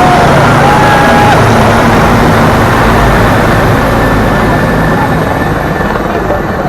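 Loud, steady engine rumble from passing traffic or aircraft, with a brief wavering tone in the first second or so, easing slightly toward the end.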